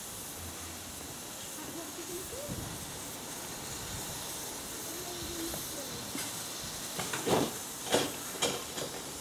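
Steady hiss of steam escaping from a stationary Robert Stephenson and Hawthorns 0-6-0T tank locomotive. Three short, sharp knocks stand out near the end.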